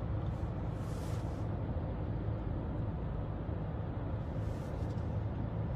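Steady low hum and road noise inside a moving car's cabin, picked up by a phone's microphone, with a couple of faint brief rustles.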